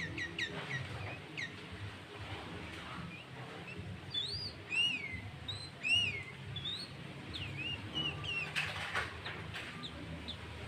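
Sooty-headed bulbul (kutilang) singing, its song filled with greater green leafbird (cucak ijo) phrases. A run of short chirps leads into a few loud arched whistles in the middle, then more chirps, with a brief rustle near the end.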